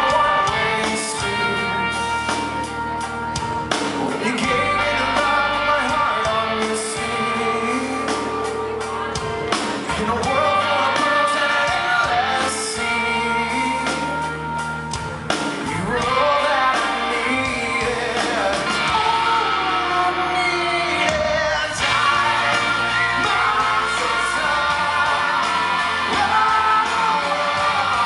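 Live rock band playing a song, a male lead voice singing over guitar and drums.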